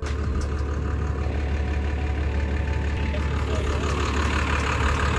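A vehicle engine idling steadily with a deep, even rumble.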